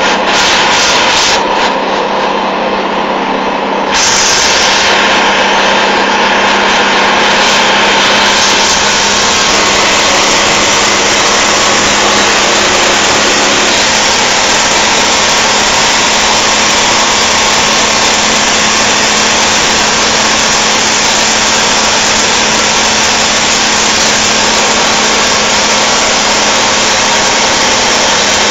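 Mercedes-Benz 911 timber truck's diesel engine running steadily under way, a loud continuous drone with a constant low hum. About four seconds in the sound abruptly becomes fuller and a little louder.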